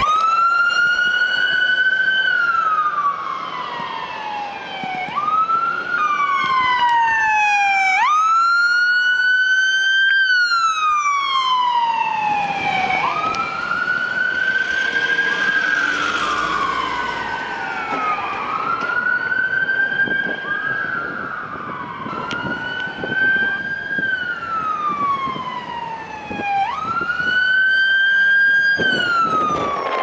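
Electronic emergency-vehicle sirens sounding a wail, each cycle rising over about two seconds and sliding slowly back down, over and over. In places two sirens overlap, their rising and falling pitches crossing.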